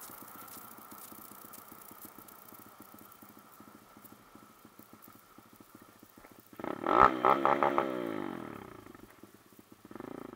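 Honda 125cc motorcycle engine running at low revs, then revved loudly about six and a half seconds in, the pitch falling away over the next few seconds as it slows.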